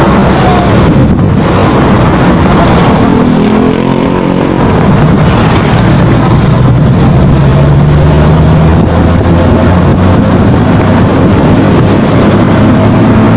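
Motorcycle engine running under way, its note climbing as it speeds up about four seconds in and again near eight seconds, with wind rushing over the microphone.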